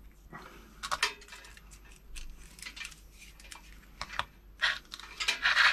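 Small metal tools and parts being handled on a workbench: scattered light clicks and clinks, with a louder cluster near the end.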